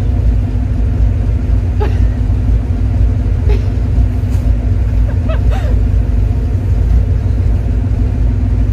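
Car engine running at a steady speed, a constant low rumble.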